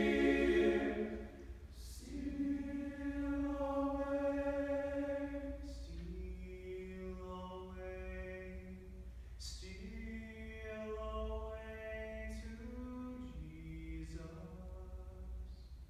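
Men's chorus singing a cappella: a loud chord fades out about a second in, then soft held chords shift every few seconds, with crisp 's' consonants between phrases.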